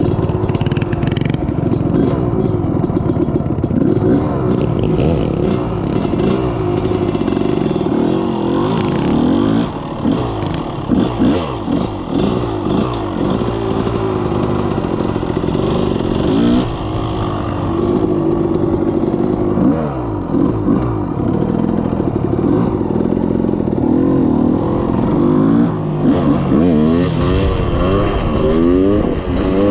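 2020 Yamaha YFZ450R SE quad's single-cylinder four-stroke engine running through a full FMF exhaust, revving up and down over and over as it is ridden, its pitch rising and falling with the throttle and briefly dropping off a few times.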